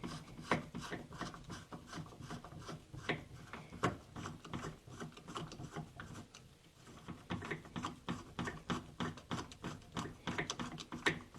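Ratcheting screwdriver driving screws by hand: rapid, repeated ratchet clicks, pausing briefly about six seconds in.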